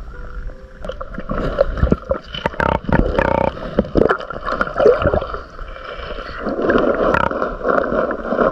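Muffled water sounds picked up by a camera held underwater: gurgling and bubbling, with scattered clicks and knocks throughout.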